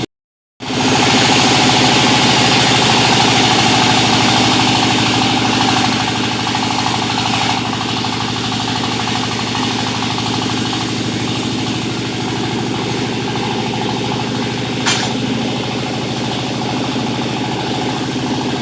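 Engine-driven sawmill running steadily, a continuous engine drone with a hissing saw noise over it, louder for the first several seconds. A single sharp click near the end.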